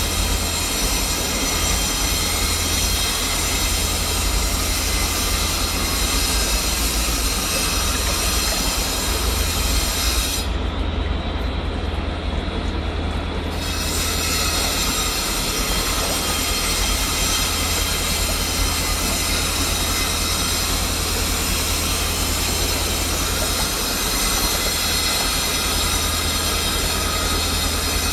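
Fast-flowing river running over rapids: a loud, steady rush of water. Its upper hiss dulls for a few seconds near the middle.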